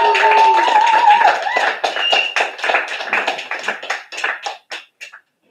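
Applause from a small group after a piano piece, hand claps that thin out and die away about five seconds in, with a cheering call over them in the first second or so.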